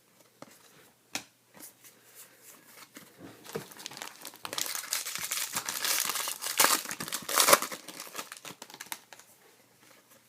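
Plastic-foil trading card pack wrapper being torn open and crumpled: a few scattered crackles at first, then a dense stretch of crinkling and tearing in the middle, dying away near the end.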